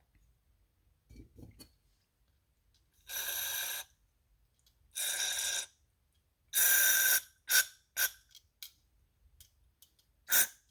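An aerosol spray can, most likely carburetor cleaner, hissing in three half-second bursts and then several short spurts while carburetor passages are flushed.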